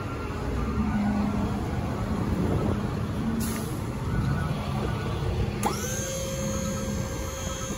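Dump trailer's electric hydraulic pump running to raise the bed and tip out the load, with its hum stopping about seven seconds in. A sharp click shortly before it stops.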